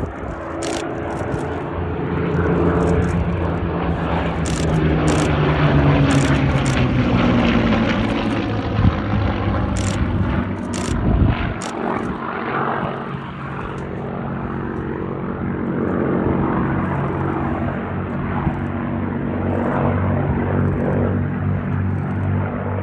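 Second World War fighter's V12 piston engine and propeller passing low, the engine note falling in pitch as it goes by, then settling into a steady drone.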